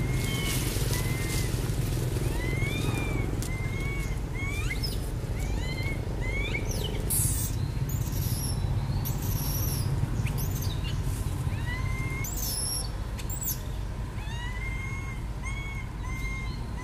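Young macaque giving repeated short, arching whimpering coo calls, the begging cry of a young monkey wanting to nurse. Sharp high chirps join in the middle.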